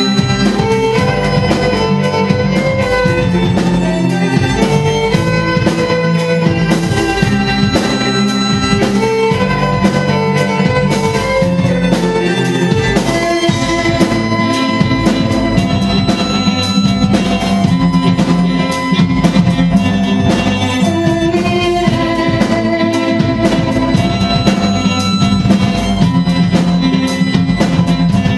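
Orchestral rock music: bowed strings playing sustained melodic lines over a steady drum kit beat.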